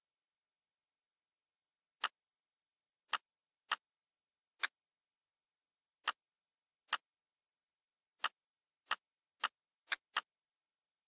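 Computer mouse clicks, eleven sharp single clicks at uneven intervals, starting about two seconds in, with dead silence between them. The last few come closer together.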